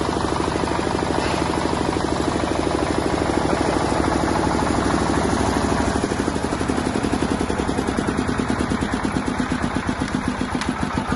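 A 10 kVA diesel generator set's engine is running steadily. From about halfway through, its beat slows and becomes more distinct, each firing stroke pulsing separately, as the engine is being shut down.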